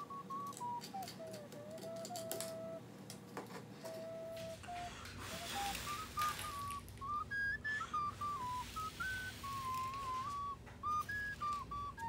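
Background music: a simple high, whistle-like melody played one note at a time, with faint scattered clicks and rustles from hands working on a tabletop.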